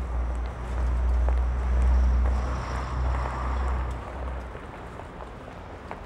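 Street traffic with a large vehicle's low engine rumble that swells to a peak about two seconds in, then fades away by about four and a half seconds. A steady hum of traffic runs underneath.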